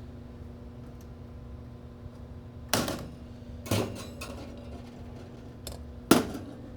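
Three sharp knocks over a steady low hum: two about a second apart, then a fainter tap and a louder knock about two seconds later.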